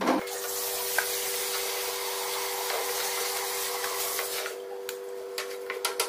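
A spoon scraping meatball dough from the inside of a stainless steel mixer pot: a steady rubbing hiss, then light clicks and scrapes of the spoon against the metal for the last second and a half, over a steady two-note hum.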